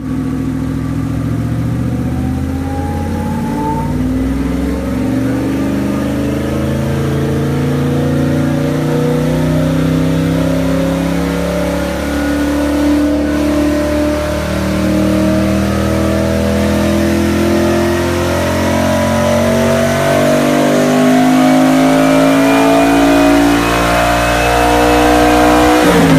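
Koenigsegg Regera's twin-turbo 5.0-litre V8 with stock exhaust, pulling in one long, unbroken run. The pitch climbs slowly and steadily for about 26 seconds with no gear-change breaks, then falls away sharply near the end.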